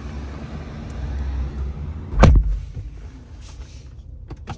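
Driver's door of a 2023 Ford F-150 Lightning pickup shut with one heavy thud about two seconds in. A couple of short clicks near the end come from the push-button start being pressed.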